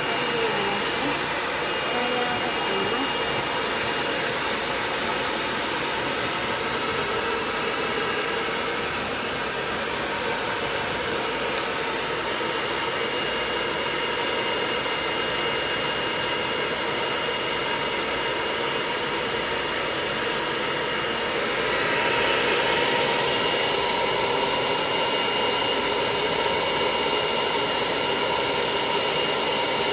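Hair dryer running steadily, blowing air over a miniature dachshund's coat: a rush of air with a high steady whine. It gets louder about two-thirds of the way through.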